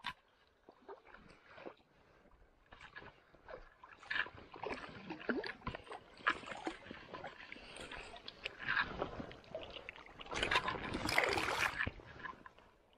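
Water splashing and sloshing in irregular bursts as a small brook trout is brought in on the line. The splashing is busiest about ten to twelve seconds in.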